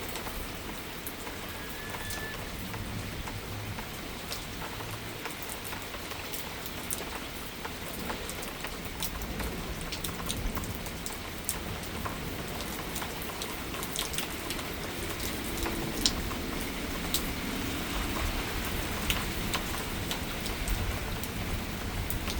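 Steady heavy thunderstorm rain, with many sharp ticks of drops striking close by; it grows slightly louder toward the end.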